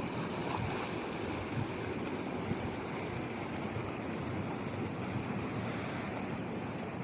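Sea waves washing in a steady rush of noise, with wind buffeting the microphone.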